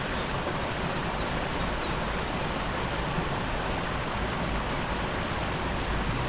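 Waterfall rushing steadily. About half a second in, a bird gives a quick run of about seven short, high notes lasting about two seconds.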